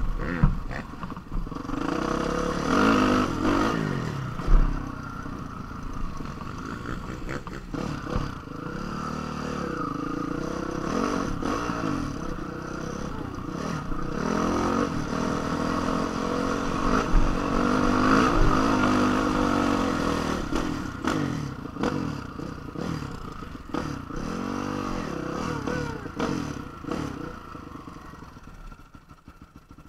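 Honda CRF450 dirt bike's single-cylinder four-stroke engine revving up and down again and again as it is ridden over rough ground, with sharp knocks, the loudest about four and a half seconds in. The engine quiets near the end.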